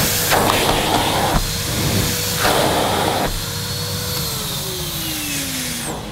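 Numatic Nuvac cylinder vacuum cleaner's 620-watt motor running, with its floor nozzle worked back and forth over a plush carpet so the rush of air swells with each stroke. About four seconds in the motor winds down, its pitch falling steadily.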